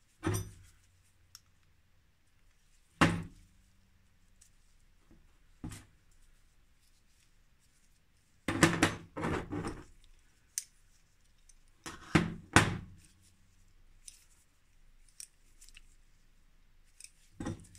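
Metal parts of a Mafac Racer center-pull brake caliper clicking and knocking as the brake arms are taken apart and laid on the workbench. The knocks are sharp and separate, with quick clusters of clinks about halfway through.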